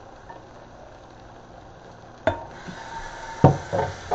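Kitchen sink faucet turned on with a click about two seconds in, then water running into a stainless steel sink. Several loud knocks follow near the end as something is handled in the sink.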